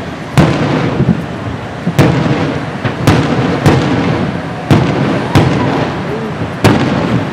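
Aerial fireworks bursting in a rapid series: about seven sharp booms roughly a second apart, each followed by a low rolling rumble that fills the gaps.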